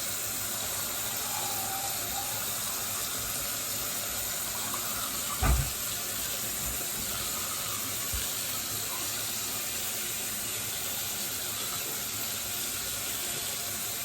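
Bathroom sink tap running steadily, with a single knock about five and a half seconds in.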